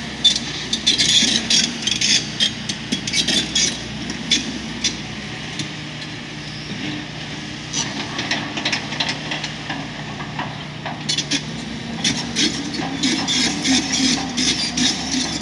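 Excavator's diesel engine running steadily at roadworks, with rapid bursts of sharp clattering and clanking over it in the first few seconds and again near the end.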